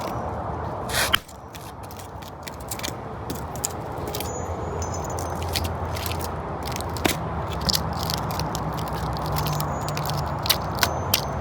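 Irregular clicks, crackles and scraping from a microwave oven transformer being pried apart, its core and copper winding working loose. A steady low hum runs underneath, and there is a louder scrape about a second in.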